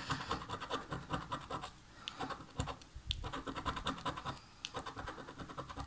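Coin scratching the coating off a paper scratch-off lottery ticket: rapid short rasping strokes with a couple of brief pauses.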